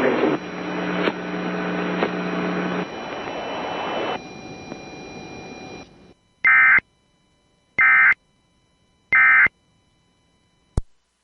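Emergency Alert System end-of-message signal: three short, identical bursts of screeching digital data tones, about a second and a half apart, marking the close of the alert. A few seconds of steadier background audio before them fades down, and a single click comes near the end.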